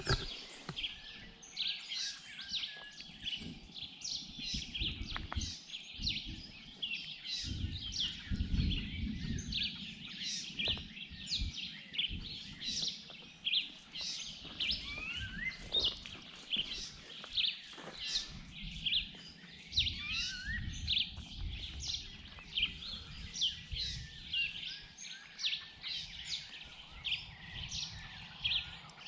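Chorus of jungle birds calling all at once: a dense, continuous stream of short high chirps and whistles, a few of them rising. A low rumble comes and goes beneath them.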